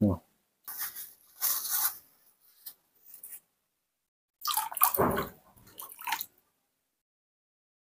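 A washcloth being dipped into a plastic basin of water and wrung out, water splashing and dripping back into the basin. It comes in three bursts, the loudest about five seconds in.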